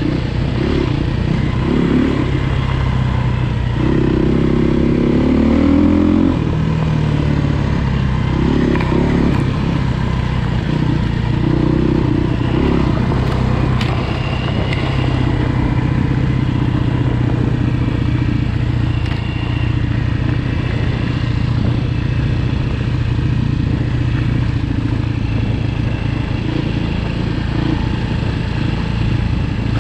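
A vehicle engine running under way, its note shifting up and down during the first dozen seconds and then holding steady.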